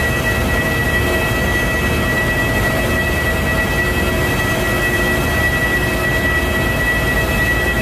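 Airbus A380's four jet engines on landing approach: a steady rumble with a constant high whine over it.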